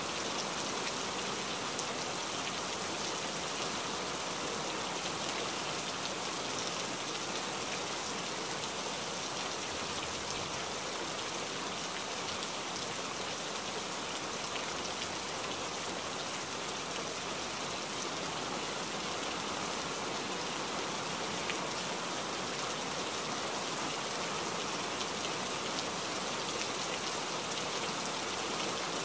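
Steady rain: an even hiss with faint scattered drop ticks, unchanging throughout.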